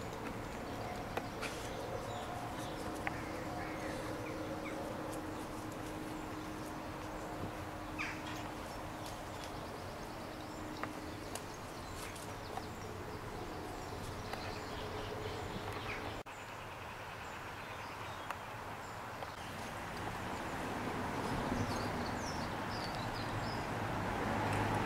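Outdoor ambience with birds chirping now and then, most near the end, over a steady hum that fades out a little past halfway.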